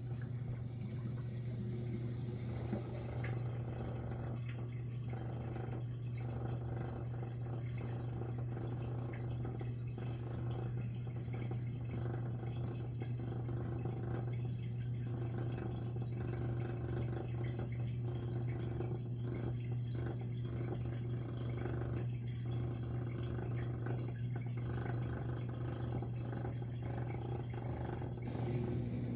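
Miele G6625 dishwasher running: a steady low motor hum with water moving inside, starting at the opening.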